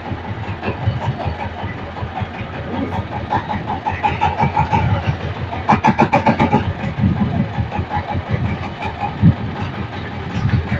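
Fishing boat's engine running steadily, with a stretch of quick rhythmic chugging about midway through.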